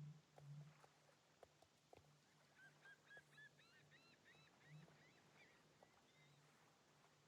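Near silence: room tone with a faint steady low hum and a few soft clicks. Faint high, chirping glides come in for a couple of seconds partway through.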